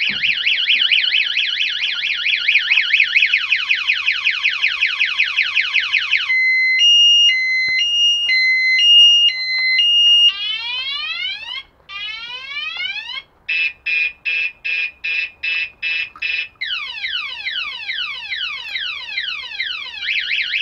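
Hawk Cyclone scooter alarm going off in full, set off by the scooter being moved after its warning chirps. It cycles through its siren tones: a fast warble, then a high-low two-tone, falling whoops, rapid beeping about three a second, and falling whoops again.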